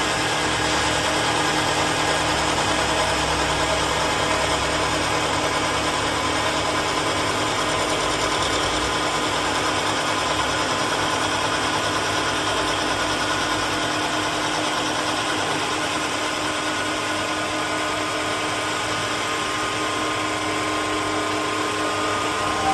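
CNC wood turning lathe running, a steady machine whine with a few held tones over a broad hiss. A deeper hum underneath fades out about two-thirds of the way through.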